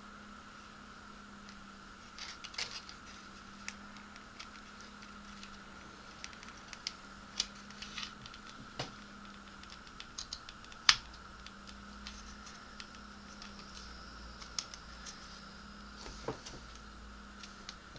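Irregular small clicks and taps of a plastic model part being handled, with fingers working at its brass bulb sockets and small screw-in flashlight bulbs; the sharpest click comes about eleven seconds in. A steady faint hum runs underneath.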